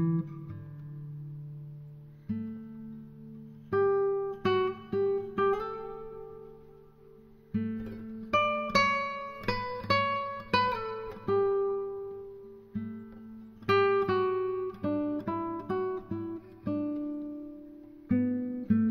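Acoustic guitar music: plucked notes and chords that ring and fade, played in phrases with short quieter gaps between them.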